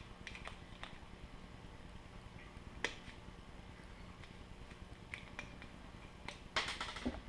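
Faint clicks and taps of hands working a plastic model-rocket nose cone while a shock cord is pushed through its attachment hole, with a sharper click about three seconds in and a short run of clicks near the end.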